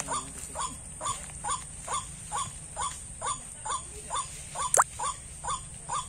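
White-breasted waterhen (ruak-ruak) calling: a steady run of short, even croaking notes, about two a second, used here as the lure at a snare set. A single sharp click sounds near the end, over a steady faint high tone.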